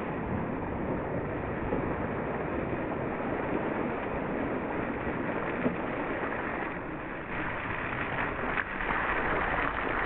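Steady rushing wind noise on the microphone, with cyclocross bikes splashing through a muddy puddle and riding past close by. The noise grows a little louder near the end.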